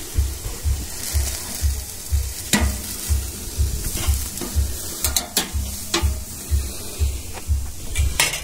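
Steaks sizzling on a barbecue grill, with several sharp metal clicks and scrapes as a spatula works against the grate. A steady low throb pulses underneath, about two or three times a second.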